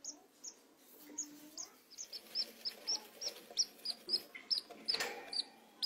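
Budgerigar chick peeping: short, high peeps, spaced out at first and then coming about three to four a second. A single sharp knock comes about five seconds in.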